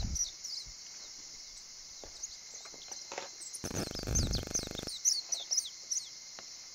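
Garden ambience: a steady high insect drone with many short, falling bird chirps. About three and a half seconds in, a harsh rasping buzz lasts just over a second and is the loudest sound.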